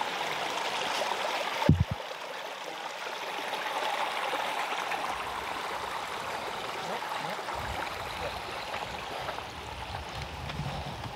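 Rushing mountain river water, a steady hiss. A brief low thump comes about two seconds in, and a low rumble joins in over the last few seconds.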